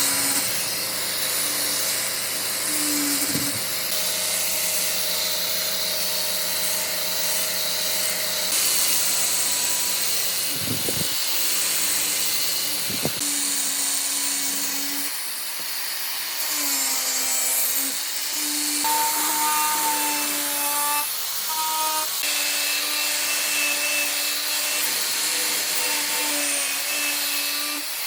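An electric power tool working wood, its motor whining steadily and shifting in pitch as it bites, over a dense hiss of cutting or abrading. Three sharp knocks come through, a few seconds in and twice more near the middle.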